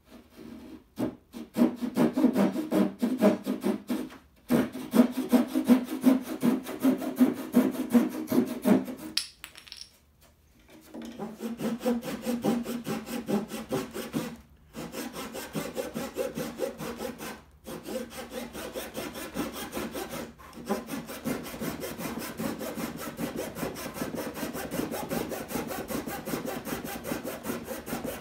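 Fine-toothed Japanese-style hand saw cutting into the edge of a Douglas fir board in quick back-and-forth strokes, starting about a second in. There are a few brief pauses, the longest about a third of the way through, and the strokes are lighter in the second half.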